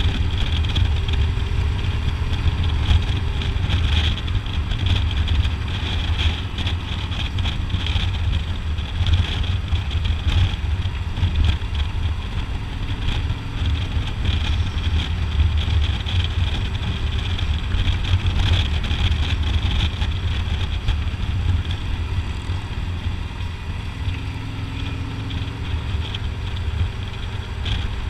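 Touring motorcycle riding at a steady road speed: its engine and the rushing air blend into a constant low rumble with a hiss over it.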